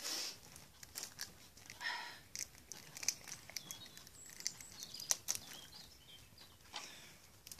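Plastic shrink-wrap being torn and crinkled off a DVD case: crisp rustling with many sharp clicks and a couple of brief high squeaks of stretched plastic.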